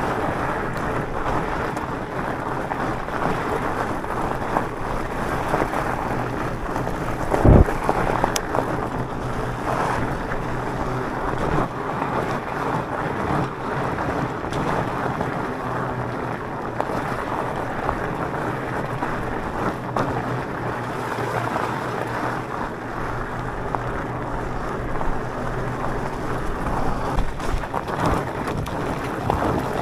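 Wind rushing over the microphone and tyres rolling over a rough track while riding an electric mountain bike, with one sharp jolt or knock about seven and a half seconds in.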